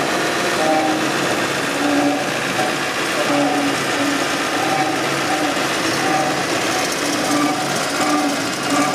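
Battering and breading machine running: a steady mechanical noise from its conveyor and rollers, with short tones repeating roughly once a second.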